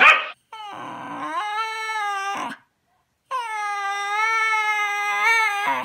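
Shiba Inu howling with its mouth wide open: two long, steady-pitched howls, the second starting after a short pause. A brief bark sounds at the very start.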